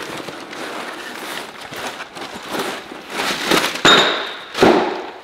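Cardboard shipping box being unpacked: packing paper rustling and crinkling as it is pulled out, with two sharp cardboard knocks near the end as the box is handled.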